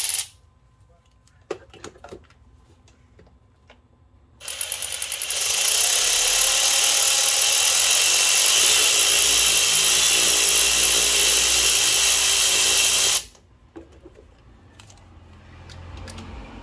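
A few light clicks, then about four seconds in a power tool spins up and runs steadily for about nine seconds, driving a 10 mm socket on an extension to back out the bolt holding an engine's PCV valve, and stops abruptly.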